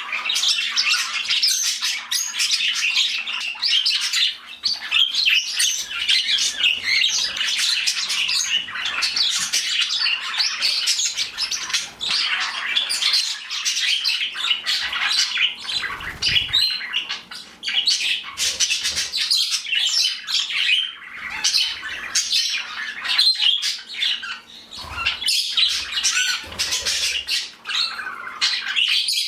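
A flock of pet budgies chattering continuously, many overlapping chirps and squawks, with other small birds in the flock joining in.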